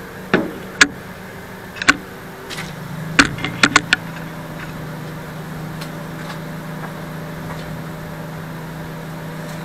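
Several sharp knocks and clicks in the first four seconds, from the camera and cabinet being handled, then a steady engine-like hum that sets in about two and a half seconds in.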